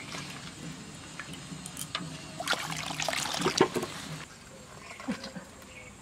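Water heating in an aluminium kadai over a wood-fired clay stove, hissing and bubbling as it comes up to the boil, with a louder run of crackles and knocks between about two and a half and four seconds in.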